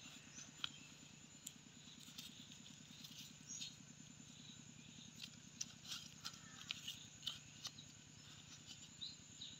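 Faint, irregular scratching and crumbling of fingers digging into dry sandy soil and leaf litter to uncover a buried hed phor (Astraeus) mushroom. The scratching comes as a string of short scrapes, over a faint steady hum and a thin high whine.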